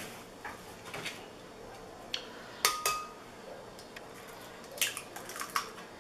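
Sharp clinks and taps on a glass blender jar as eggs are added: a few scattered ones, two close together in the middle, one of them ringing briefly, and a quick cluster near the end.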